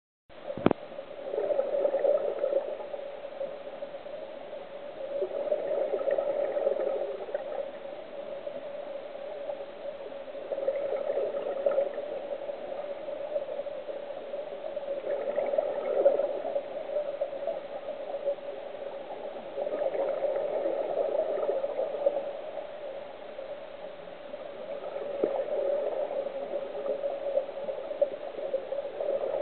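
Scuba regulator exhaust bubbles gurgling underwater, one bubbling swell about every four to five seconds as the diver breathes out, over a faint steady hum. A sharp click sounds just after the start.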